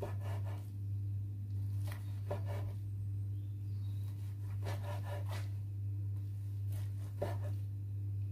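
A kitchen knife slicing through a rolled omelette onto a wooden chopping board. There are about four cuts a couple of seconds apart, each a short scrape ending in a light knock on the wood. A steady low hum runs underneath.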